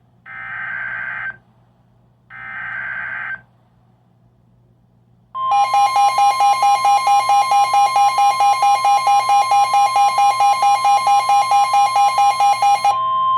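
Two one-second SAME header data bursts from NOAA Weather Radio, a harsh digital buzz, then about five seconds in the steady 1050 Hz Weather Radio warning alert tone, which comes before a tornado warning. A loud beep pulsing about four times a second runs over the tone and stops shortly before the end, while the steady tone carries on.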